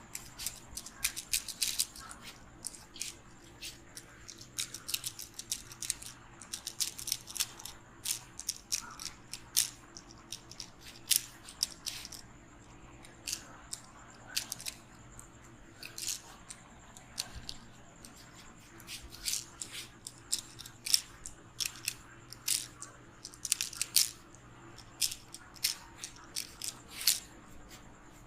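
Head massage: irregular quick crackling and rubbing sounds of strokes through hair and on the scalp, coming in uneven clusters.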